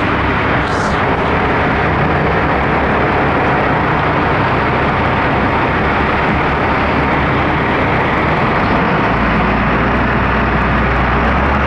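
A sportfishing boat's engine running steadily under way, mixed with a steady rush of wind and water; the low engine drone grows louder about nine seconds in.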